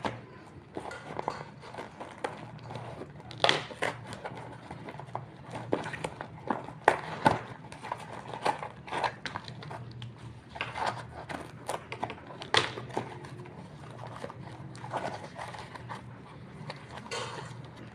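Hands opening a parcel: plastic packaging crinkling and rustling, with frequent sharp clicks and crackles, the loudest a few seconds apart.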